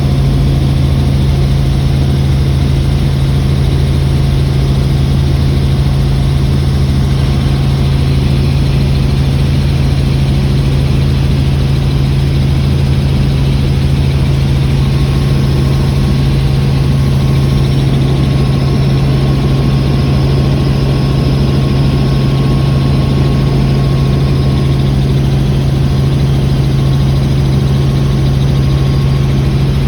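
Helicopter engine and rotor noise, a loud steady drone with a strong low hum that does not change.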